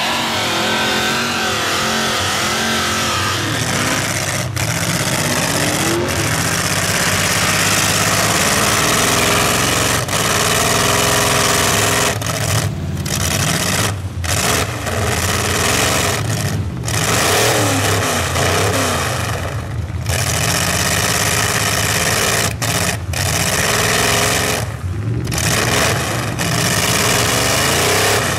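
Small pickup truck's engine, exhausted through stacks out of the hood, revving hard as it churns through deep mud, its pitch rising and falling again and again with brief breaks in the sound.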